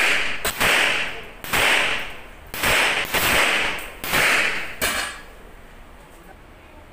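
.45-calibre pistol firing a string of about seven shots, some in quick pairs, each followed by a ringing echo off the range walls. The firing stops about five seconds in.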